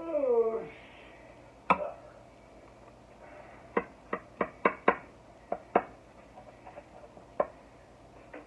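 Bread knife knocking and tapping against a ceramic baking dish while cutting through Hawaiian-roll sliders: one sharp knock early on, then a quick run of about half a dozen knocks a few seconds in, and a last one near the end.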